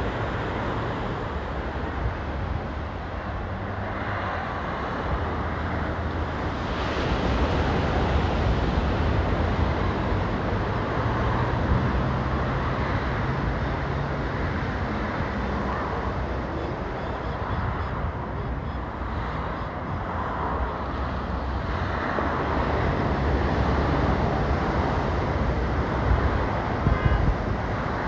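Steady road traffic noise from cars passing on a highway, with wind on the microphone.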